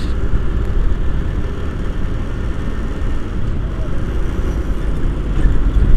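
Motorcycle running on the road, its engine and road noise mixed with a steady wind rumble on the microphone.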